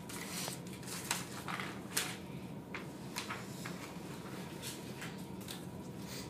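Sheets of paper being slid and shuffled by hand: a string of short, soft swishes and rustles, with a faint steady hum underneath.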